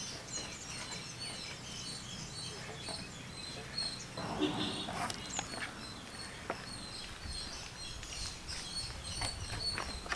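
Birds chirping over quiet rural outdoor background, with a brief distant voice about four seconds in and a few faint wet clicks from hands working chicken into a yogurt-and-spice marinade.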